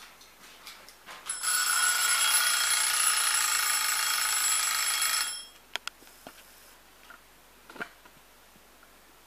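A bell ringing steadily for about four seconds and then cutting off suddenly, followed by a few sharp clicks.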